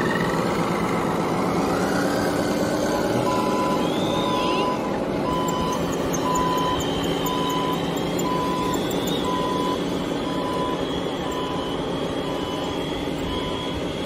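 Remote-control model excavator with an engine-like drone, a few rising and falling whines, and a steady series of short warning beeps like a reversing alarm that starts about three seconds in.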